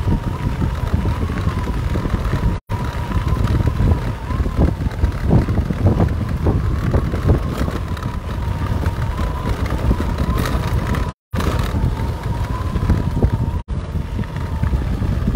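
Wind buffeting the microphone over the running noise of a moving vehicle, with a thin steady whine held throughout. The sound cuts out completely three times for a moment: dropouts of a live stream on a choppy internet connection.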